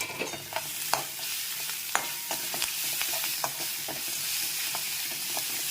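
Tempering of mustard seeds, dals, curry leaves and ginger–green chilli paste sizzling in hot oil in a wok. A spoon stirs it, clicking and scraping against the pan every few tenths of a second. The sizzle grows louder about half a second in.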